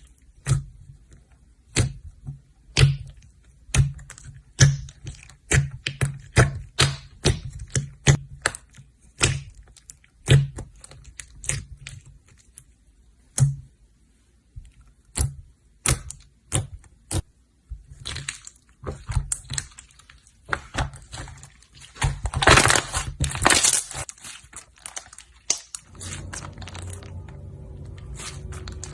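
Slime being squeezed and poked by hand, giving a quick irregular run of sharp clicks and pops, then a longer dense crackle about two-thirds of the way through.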